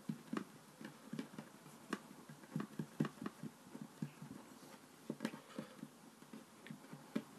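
Fingers patting and pressing a small lump of play dough into a flat square on a wooden tabletop: many soft, irregular taps and thuds.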